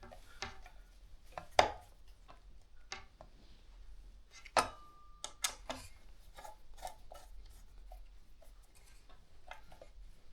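Clicks and knocks of small metal hardware and fan parts being handled while a ceiling fan blade is screwed on, with two louder knocks about a second and a half and about four and a half seconds in, and a short squeak right after the second.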